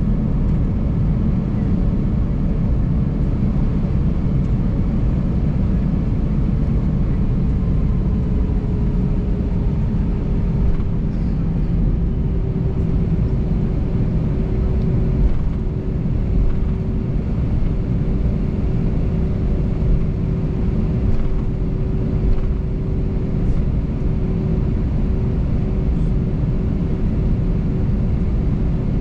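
Steady low rumble inside an Airbus A320 cabin as the airliner taxis, with a steady hum that drops slightly in pitch about eight seconds in and then holds.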